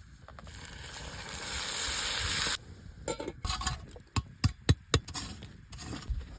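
Lamb sizzling as it cooks, the hiss building over about two and a half seconds and then cutting off abruptly. A run of sharp knocks and taps follows, four loud ones in quick succession.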